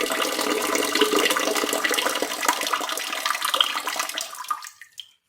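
A toilet flushing: rushing water that dies away about four and a half seconds in.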